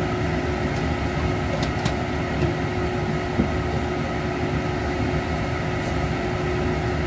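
Steady kitchen hum with a hiss, from the stove and extractor running while a wok of fried rice vermicelli cooks, with a couple of faint light clicks about two seconds in.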